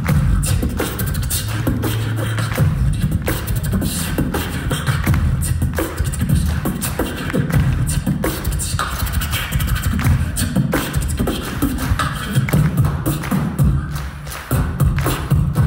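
Live beatboxing into a handheld microphone, amplified through a concert PA: a steady run of sharp mouth clicks and snares over deep kick-drum thumps.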